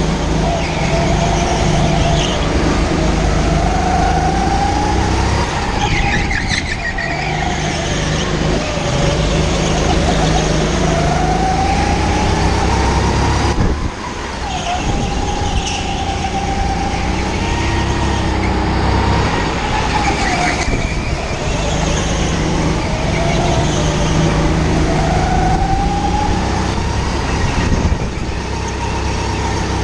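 Go-kart engine heard from on board, running hard: its note climbs over a few seconds on each straight and drops away into each corner, four or five times over, with a steady rumble and road noise underneath.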